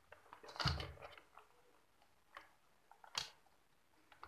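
Handling noise from a circuit board and speaker wire being moved about on a tabletop: a knock and rustle with a dull thump about half a second in, then a single sharp click a little after three seconds, with faint ticks between.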